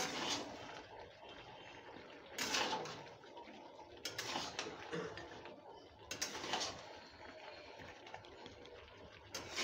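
A metal spatula scraping and stirring chicken pieces in an aluminium kadai, in short strokes about two seconds apart.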